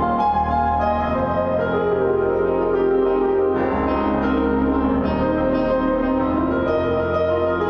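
Solo piano music played on a Nord Stage 3 stage keyboard, both hands sounding full sustained chords that change about every second.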